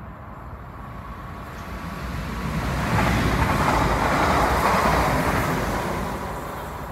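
A London Northwestern Railway electric multiple unit passing through the station at speed: a rush of wheel-on-rail and air noise that swells from about two seconds in, is loudest in the middle, then fades as the train goes away.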